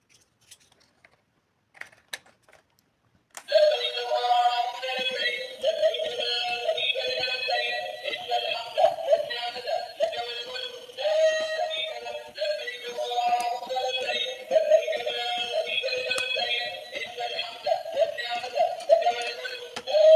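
A few faint clicks, then about three seconds in, music with a high-pitched melody starts and plays on.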